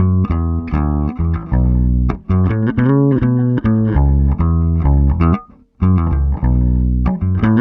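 Electric bass guitar played direct into an Avalon U5 Class A active DI, no amp, with the DI's high-cut filter engaged: a riff of plucked notes that stops briefly about five and a half seconds in.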